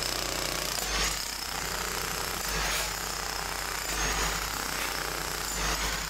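Electric jackhammer (demolition breaker) running into loose asphalt around a manhole frame: a steady hammering rattle that swells about every second and a half.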